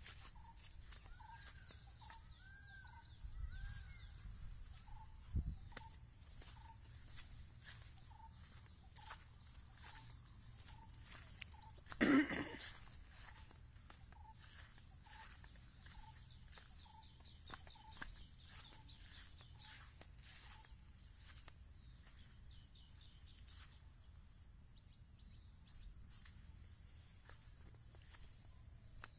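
Outdoor field ambience: a steady high-pitched chorus of insects such as crickets, with footsteps and rustling through grass. Through the first half a short call repeats about once a second. About twelve seconds in there is one loud thump.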